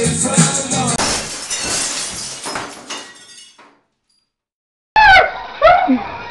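Music cut off about a second in by a shattering crash that dies away over two to three seconds. After a second of silence, loud yelling voices break in near the end.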